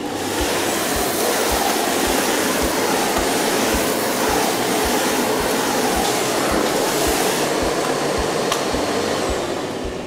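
Miele Blizzard CX1 bagless canister vacuum running, its floor head on the hard-floor setting passing over tile: a loud, steady rushing suction noise that swells up at the start and fades near the end. A background music beat runs underneath.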